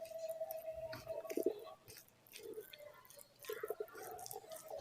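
Close-miked chewing of a mouthful of rice mixed with coriander-leaf bharta: wet, squishy mouth sounds with repeated small smacks and clicks. A faint steady tone runs under the first second and a half.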